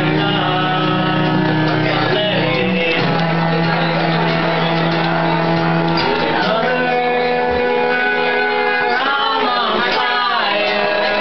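Live acoustic duo: a steel-string acoustic guitar strummed under a bowed cello holding long notes. A man's and a woman's voices sing over them from about halfway through.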